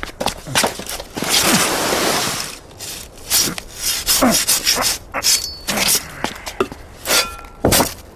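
Cartoon sound effect of a saw cutting into a block of ice: a series of rasping strokes, one long one about a second in and several shorter ones after it.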